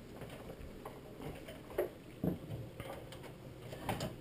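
A few scattered light plastic knocks and clicks as the inner door panel of an LG microwave is tugged and pried loose, the loudest a little past two seconds in.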